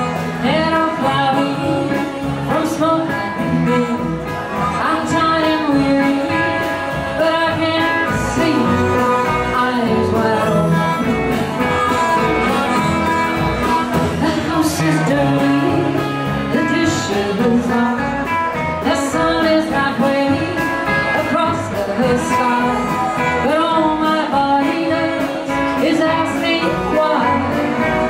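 Live band playing an up-tempo blues number: a woman sings lead over electric and acoustic guitars, upright double bass, drums and harmonica.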